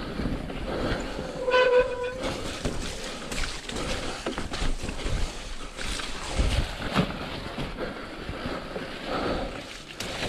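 Mountain bike descending a dirt forest trail at speed: tyres rolling and scrabbling over soft dirt and roots, the bike rattling over bumps, with wind rush on the microphone. About a second and a half in comes a brief pitched squeal lasting about half a second.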